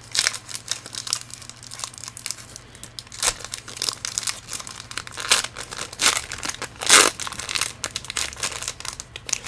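Plastic foil wrapper of a Pokémon trading card booster pack crinkling and tearing as it is opened by hand and the cards are slid out, in irregular crackles with a few louder rips.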